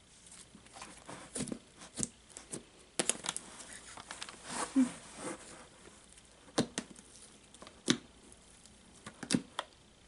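Slime with clay mixed in being stretched and kneaded by hand, giving irregular sticky clicks and small tearing pops as it pulls apart and is pressed together.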